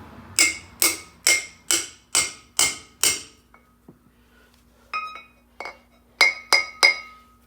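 Hammer tapping a driver cone to seat a new grease seal into a front rotor hub: seven strikes about two a second, a pause, then five more, each leaving a short metallic ring.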